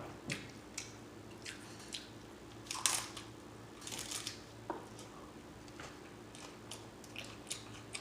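Close-up mouth sounds of someone chewing a taco: scattered smacks and clicks, the loudest about three seconds in and a short cluster around four seconds.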